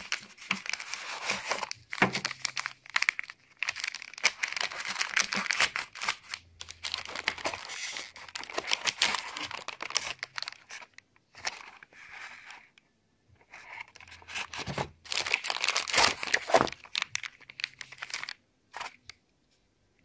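Clear plastic bags crinkling and rustling as small kit parts are handled and lifted out of foam packing, with light clicks of parts against the foam and box, in bursts with short pauses.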